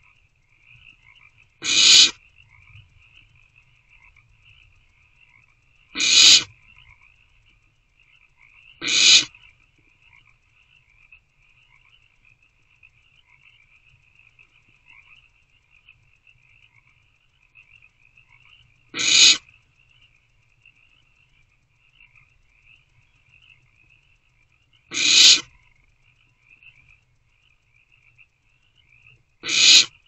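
Barn owlets in the nest box giving short hissing calls, six in all at irregular intervals, each lasting about half a second. Behind them runs a steady, high, fast-trilling night chorus.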